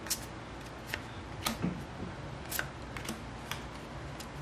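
Magic: The Gathering trading cards being flipped through one at a time from a hand-held stack, with light, sharp clicks and snaps of card stock at uneven intervals, about one every half second to a second.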